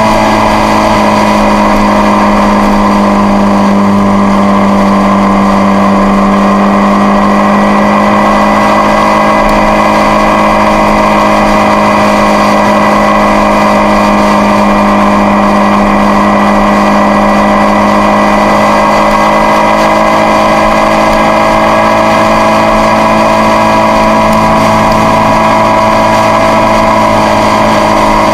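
Triumph Street Triple's three-cylinder engine running steadily at motorway cruising speed, a constant drone that dips slightly in pitch in the first second or two and then holds.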